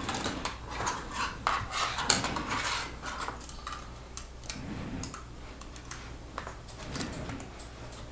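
Plastic Lego pieces clicking and clattering as they are handled during a build, busiest in the first three seconds, then sparser clicks.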